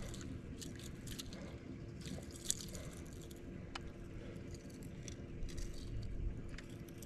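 Close handling noises: irregular rustling, scraping and small clicks, with one sharp click about two and a half seconds in, over a faint steady hum.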